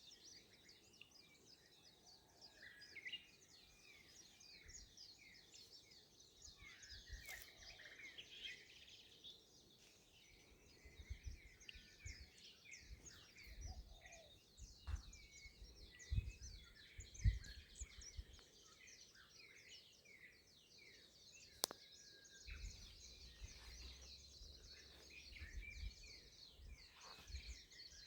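Faint chorus of many birds chirping and calling over one another without a break. Low thumps come and go in the middle and toward the end, and there is one sharp click about two-thirds of the way through.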